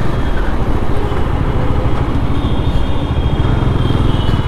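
Bajaj Dominar 400's single-cylinder engine running steadily as the bike is ridden.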